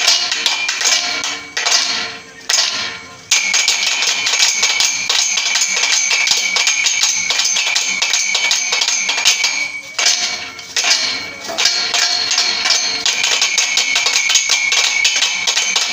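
Fast stick drumming, a dense run of rapid strokes with a steady metallic ring above them. The beating breaks off briefly twice, once about two seconds in and again a little past the middle.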